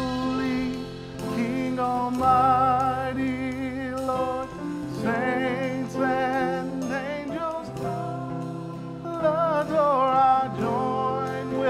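A song: a singer holding notes with wide vibrato over sustained instrumental chords.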